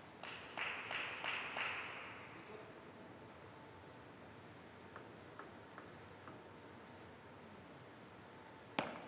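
Table tennis ball ticking lightly a few times about five to six seconds in as it is bounced before the serve, then the sharp click of the serve near the end. In the first two seconds, a short noisy stretch with a few sharp claps, like scattered applause.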